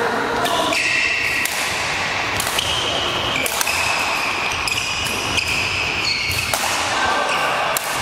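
Badminton rackets striking a shuttlecock in a rally, sharp hits about once a second, with court shoes squeaking on the hall floor between shots, echoing in a large sports hall.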